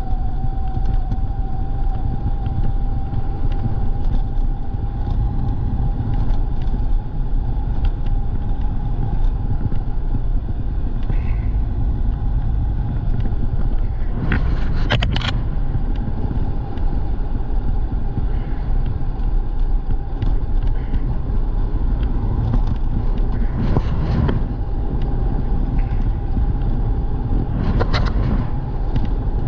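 Riding an e-bike: wind and road rumble on the microphone, with the motor's steady whine running under it. A few brief louder rushes come about halfway through and again near the end.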